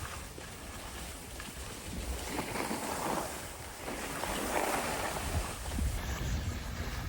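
A rushing noise over a constant low rumble, swelling twice around the middle.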